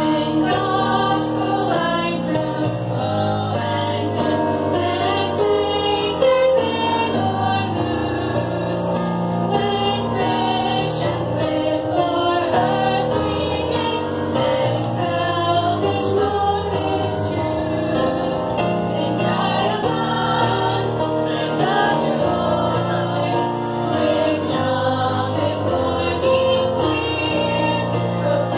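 Three teenage girls singing a Christian song together through microphones, several voices at once, with musical accompaniment underneath.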